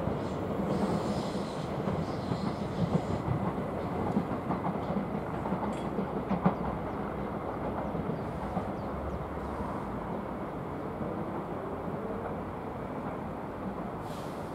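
NS Sprinter Lighttrain electric multiple unit, two coupled sets, pulling out over the points. Its wheels rumble and clatter over the switches, with a sharper click about six seconds in and a faint rising whine late on, while the sound slowly fades.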